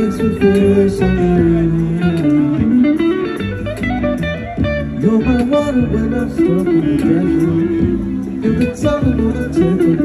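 Electric guitar played live by a street musician, a melodic line with sustained notes that slide and bend in pitch.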